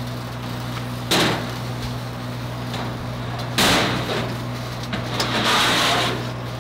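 A steel oxygen cylinder is set down on a sheet-steel welding-truck bed with a loud clank about three and a half seconds in, then slid along the metal rack with a scraping noise for about a second. There is a sharper knock about a second in, and a steady low hum throughout.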